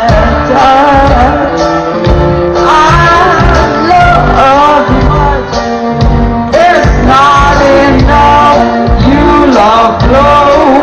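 A live band playing with a woman singing lead into a microphone, her voice rising and falling over drums and bass. The music is loud, recorded from the crowd.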